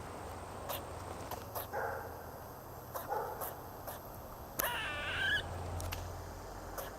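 A squirrel making odd vocal calls: three short, wavering, whiny cries, the last and loudest about four and a half seconds in, among sharp clicks.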